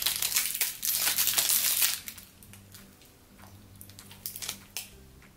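Plastic snack-bar wrapper crinkling as it is handled, for about the first two seconds, then only faint scattered clicks.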